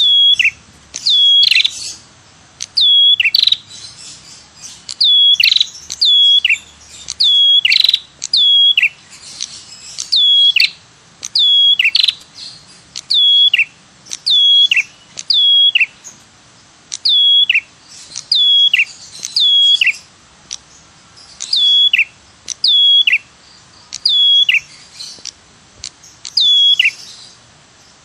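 Lure-call recording of the red-headed prenjak, a small songbird. It gives a long string of sharp, high 'tirr' notes, each sliding down in pitch, repeated about once a second.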